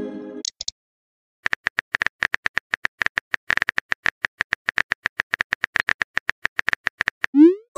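Phone keyboard clicks from a texting app, a fast even train of about eight taps a second, starting about one and a half seconds in. Just before the end comes a short rising swoosh as the message is sent.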